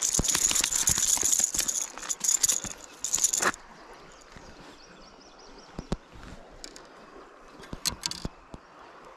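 White bass flopping on concrete with a Rattletrap lipless crankbait hooked in its mouth: a fast, loud clatter of the lure's internal rattles and the fish slapping the ground, stopping about three and a half seconds in. A few faint clicks follow.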